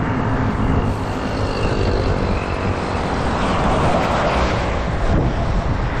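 Highway traffic, with a coach bus passing close by; its engine and tyre noise swell about four seconds in.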